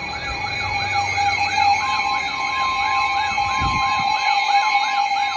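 Emergency alert tones for a severe thunderstorm warning: an electronic siren-like warble sweeping up and down about three to four times a second over a steady tone. A second steady, higher tone joins about two seconds in, like the weather radio warning tone.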